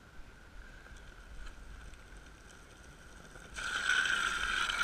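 Longboard's urethane wheels sliding sideways across asphalt in a hands-down slide: a loud screeching hiss with a steady squeal through it. It starts suddenly about three and a half seconds in, after only a faint rolling sound as the board approaches.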